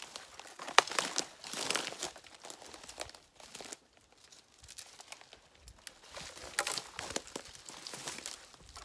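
Footsteps through dry brush and fallen branches: twigs crackling and snapping underfoot in irregular bursts, with one sharp snap about a second in.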